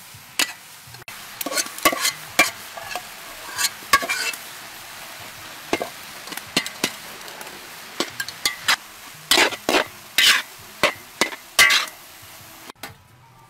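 A long metal spatula scraping and clanking against a large steel wok as rice is stirred into frying chilies, over a steady sizzle. The strokes come at irregular intervals, and the sizzle cuts off suddenly near the end.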